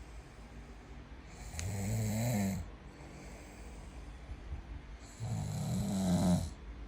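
Snoring: two long, low snores, each just over a second, about four seconds apart, with quiet breathing between.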